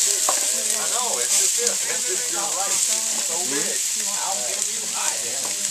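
Diced onions frying in hot oil in a large black pan, a steady sizzle as more onions are tipped in from a foil tray.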